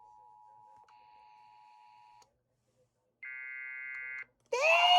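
Emergency Alert System two-tone attention signal, a faint steady dual tone that picks up higher tones about a second in and cuts off a little after two seconds. A chord of steady electronic tones follows for about a second, then a loud sound rising in pitch sets in near the end.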